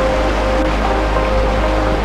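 Background music: a melody of short held notes over a steady deep bass.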